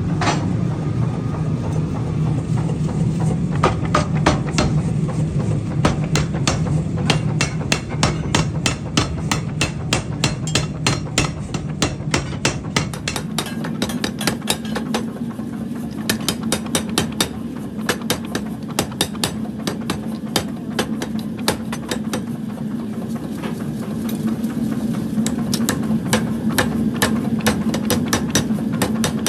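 Mechanical power hammer pounding a red-hot steel block held in tongs, forging a pickaxe head: rapid, evenly spaced blows, several a second, over the steady hum of the machine.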